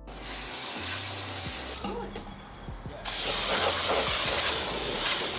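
High-pressure washer spraying water onto a vehicle's bodywork: a steady hiss of spray that changes in tone about three seconds in.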